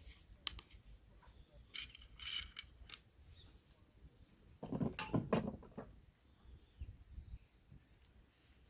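Wind buffeting the microphone with an uneven low rumble, under a steady high hiss. Brief rustles and knocks come through, the loudest cluster about five seconds in.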